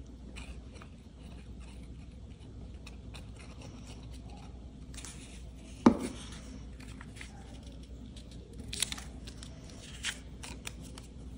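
Paper pieces being handled and pressed together on a craft table: faint rustles and light clicks, with one sharp knock about six seconds in.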